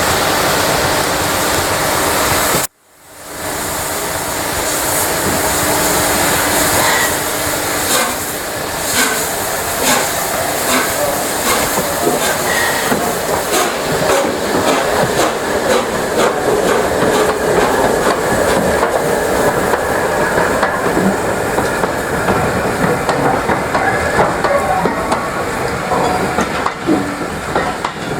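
A steam-hauled train rolling into the station behind the Peppercorn A1 Pacific locomotive Tornado, with steam hissing and wheels clicking over rail joints in a run through the middle. The sound drops out abruptly near three seconds in and builds back up.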